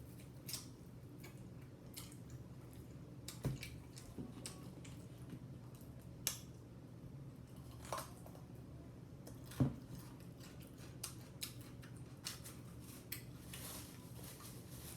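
Close-up eating sounds: chewing with scattered small mouth clicks and light taps, and a few sharper clicks.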